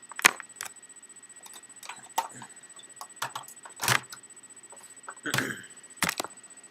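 Handling noise while a camera is being repositioned: about half a dozen separate clicks and knocks, with a longer rubbing sound about five seconds in.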